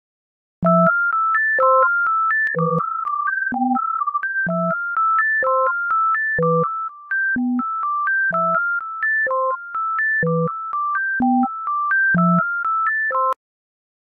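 Serum software synthesizer playing a melody of short, clean notes, with a lower note about once a second beneath the tune; the tone is an early stage of a patch being built toward a xylophone/bell sound. It starts about half a second in and cuts off suddenly near the end.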